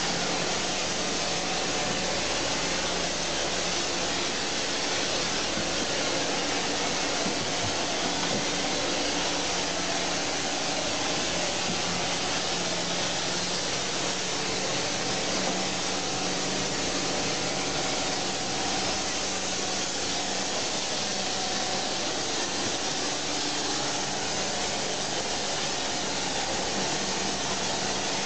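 Pressure sprayer running steadily: an even, unbroken hiss of spray from a hand lance, with a faint steady hum under it, as hoof-treatment solution is sprayed onto cows' hooves.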